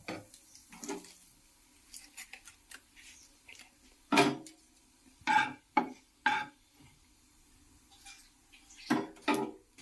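Metal kitchen utensils and cookware clinking and clattering: a string of sharp knocks that ring on briefly, loudest at about four to six seconds in and twice more near the end.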